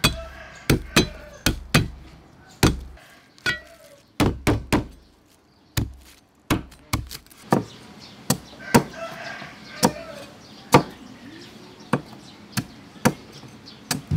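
Meat cleaver chopping garlic and green vegetables on a thick round wooden chopping board: sharp, irregular knocks, roughly two a second, with a short pause about halfway through.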